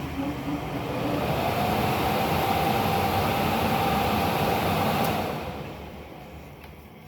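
Furnace blower fan spinning up into a loud rush of air with a rising motor whine, running steadily, then winding down about five seconds in. The run-down is the controller shutting everything off once the faked flame signal is removed, as a flame-loss safety shutdown should.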